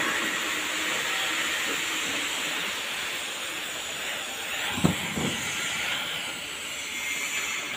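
TIG welding on a stainless steel pipe joint: the arc and shielding gas make a steady hiss. A single short low thump comes near the middle.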